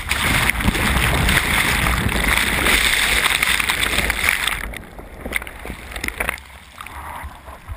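Breaking surf wave engulfing a camera on a bodyboard: loud churning whitewater for about four and a half seconds, then dropping abruptly to a quieter, muffled churn as the camera stays under the water.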